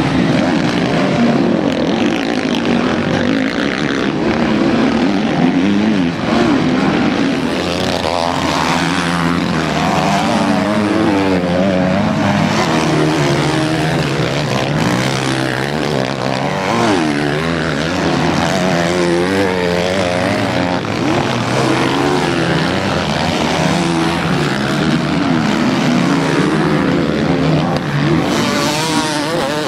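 Several motocross bikes racing past, engines revving up and down as the riders accelerate and back off, with overlapping engine notes that keep rising and falling.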